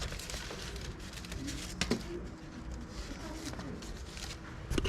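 Faint low cooing of a dove, with a sharp knock just before two seconds in and another near the end.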